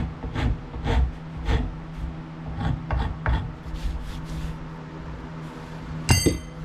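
Hand rasp working a wooden axe handle to shape its grip, in strokes about twice a second that thin out after about four seconds. Near the end there is a short, sharp metallic ring.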